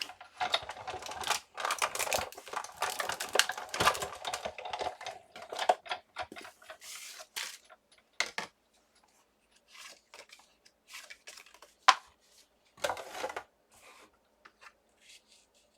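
Cardstock being handled on a steel-rule die cutting setup: crackly paper rustling with many small clicks and taps, thinning out after about eight seconds into scattered taps and one sharp click.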